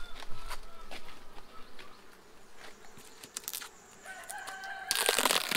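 A rooster crows twice, with scattered light knocks from handling the wooden beehive. Near the end comes loud crackling and scraping as the hive's inner cover is pried up.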